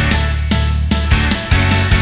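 Background music with a steady drum beat over a strong bass line.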